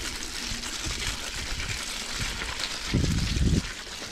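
Mountain bike riding over a muddy, rutted dirt track: a steady rush of tyre and wind noise with small rattles and knocks from the bike, and a louder low rumble for about half a second about three seconds in.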